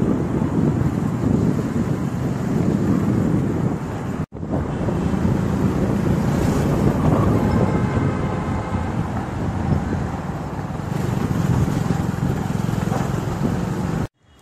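Wind rushing over the microphone of a camera moving through traffic, mixed with the low rumble of vehicle engines. The sound drops out briefly about four seconds in and again just before the end.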